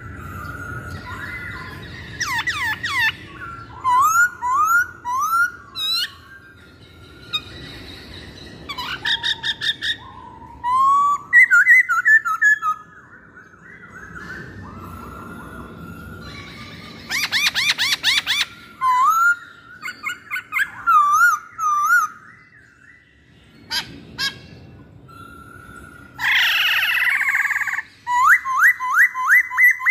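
Black-throated laughingthrush (poksay Hongkong) singing a loud, varied song of clear rising and falling whistles and quick runs of repeated notes, with a harsh, noisy call near the end.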